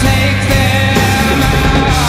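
Loud rock soundtrack music with distorted guitars, a steady bass and drums.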